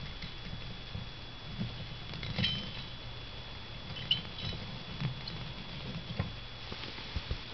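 Scattered light clicks and taps from a hand working the switch and buttons on a hand-built Arduino control board. Under them run a steady low hum and a thin high whine.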